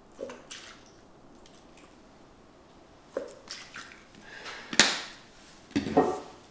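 Liquid soy seasoning dribbling from a bottle into a tablespoon and into a plastic food processor bowl, with small wet drips. Sharp clicks as the spoon and bottle are handled, the loudest nearly five seconds in.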